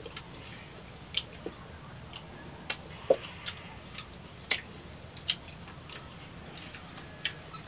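Santol fruit being eaten: irregular wet clicks and smacks of biting and chewing the pulp, about one or two a second.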